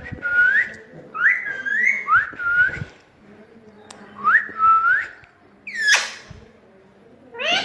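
Pet parrot whistling: a run of short rising whistles in small groups, then one harsh squawk about six seconds in.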